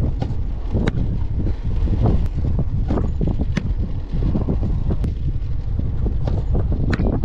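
Wind buffeting the microphone, a steady low rumble, with a few sharp knocks.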